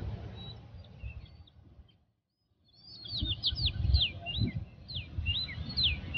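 Small birds chirping in quick, short calls over a low rumble. The sound drops out for a moment about two seconds in, and the chirping is thicker after that.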